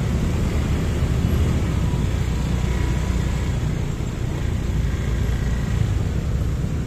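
Steady low rumble of motorbike and car traffic, heard from a motorbike moving slowly through congested street traffic.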